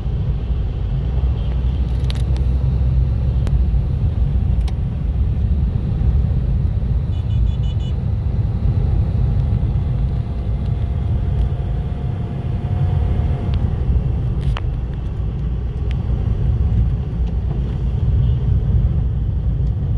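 Steady low rumble of road traffic, with a few faint clicks and a brief run of short beeps partway through.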